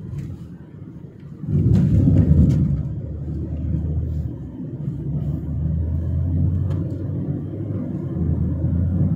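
A car driving: a steady low rumble of engine and road noise heard from inside the car, which jumps louder about a second and a half in.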